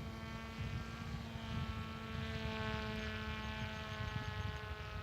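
Electric motor and propeller of an RVJet flying wing whining in flight: a steady tone with many overtones that drifts slightly in pitch, over low wind rumble on the microphone.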